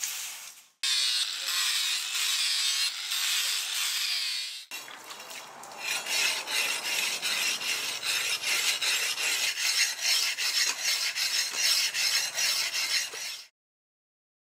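Leaf-spring steel cleaver blade being sharpened on a whetstone: a long run of quick, even back-and-forth rubbing strokes that stops abruptly near the end. It comes after a few seconds of steady hissing.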